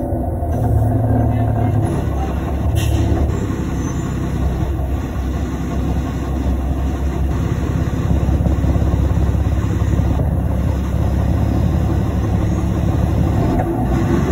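Cummins ISL diesel engine of a 2005 New Flyer D35LF transit bus running with a steady low drone, heard from aboard the bus.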